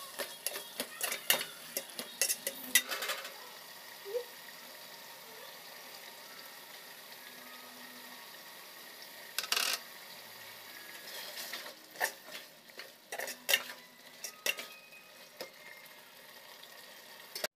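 Perforated metal spoon stirring and scraping against a metal cooking pot, clinking in clusters during the first three seconds, once around ten seconds, and several times between twelve and fifteen seconds, over a steady sizzle of chicken masala cooking in the pot.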